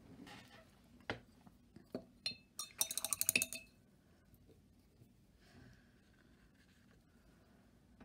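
Painting tools handled on a work table: a few light knocks, then a quick run of ringing, glassy clinks about three seconds in.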